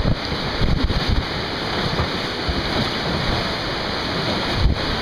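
Fast, muddy river water rushing around a raft, with wind buffeting the microphone in gusts and a brief low thump near the end.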